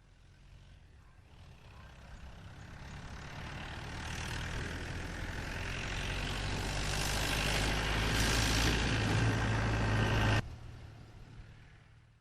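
Jeep engine drawing closer, growing steadily louder for about ten seconds, then cutting off abruptly, with a short fading tail.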